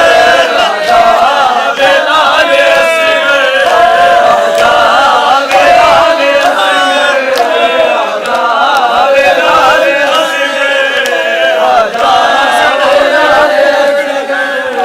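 A group of voices chanting a nauha, a Shia lament for Muharram, together in a loud continuous chant.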